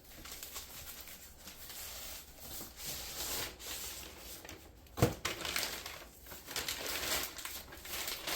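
Packaging being opened and handled: crinkling and tearing of wrapping, with a sharp knock about five seconds in.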